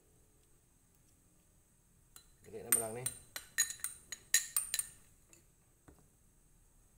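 Metal spoon clinking and tapping, a quick run of sharp ringing clinks between about two and five seconds in, with a brief voice sound among them.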